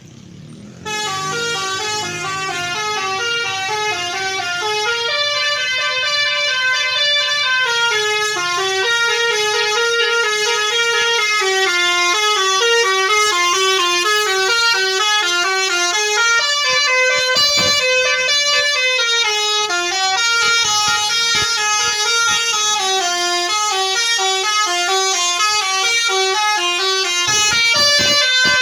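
Indonesian 'telolet' bus horn, a set of multi-tone horns, playing a long winding tune ('mengular'). It starts about a second in, stepping quickly from note to note.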